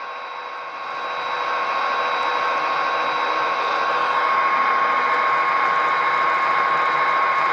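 Athearn SD50 model locomotive running in place with its front wheels spinning on a wet paper towel: a steady electric motor whine and hum mixed with its DCC sound decoder's diesel sound. It grows louder about a second in as the throttle is stepped up, then holds steady.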